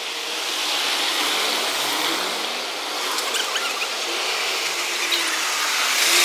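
Heavy Volvo flatbed truck with a loading crane driving up and passing close, its engine and tyre noise swelling to a peak as it draws alongside near the end, with a few short high squeaks.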